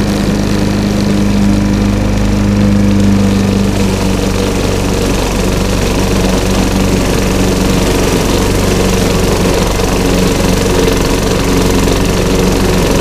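Walk-behind lawn mower running steadily as it is pushed over a lawn thick with fallen leaves. Its tone shifts slightly about four seconds in.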